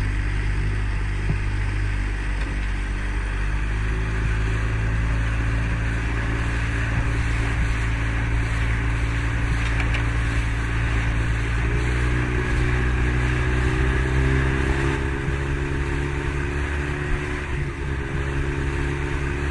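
A small boat's outboard motor running steadily. Its engine note shifts about twelve seconds in, with spray and water noise over it.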